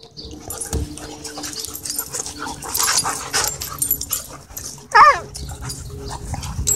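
Dogs play-wrestling at close range: scuffling and rustling on dirt, with one loud, short yelp about five seconds in.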